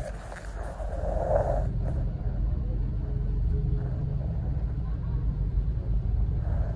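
Steady low rumble of engine and road noise inside the cabin of a moving van.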